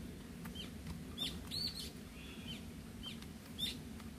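Small songbird calls: short, high, arched chirps repeated every half second or so, over a faint steady low hum.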